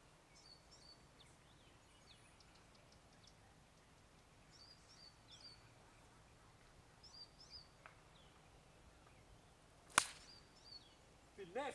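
Small birds chirping in short repeated calls, then about ten seconds in a single sharp crack of a golf club striking the ball off the tee.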